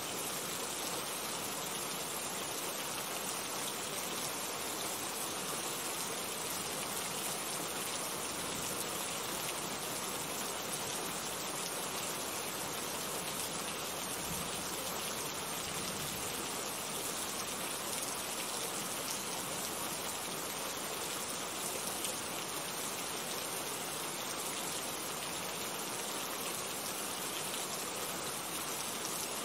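Steady rain falling: an even, unbroken hiss of drops.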